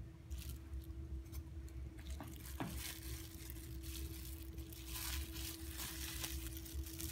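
Clear plastic disposable glove crinkling and rustling in irregular crackles as the gloved hand handles a small fish, more busily from about two seconds in. A steady faint hum runs underneath.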